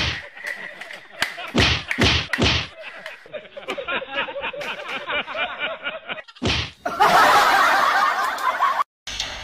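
Three sharp smacks in quick succession, another a few seconds later, then a loud rushing noise lasting about two seconds that cuts off abruptly.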